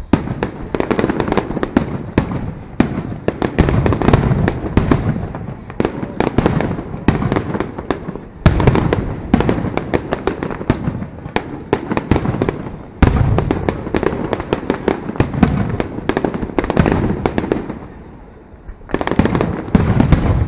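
Aerial fireworks display: a dense, continuous run of shell bursts and crackling stars, with sudden louder bangs about eight and thirteen seconds in. The bursts thin out briefly near the end, then start again.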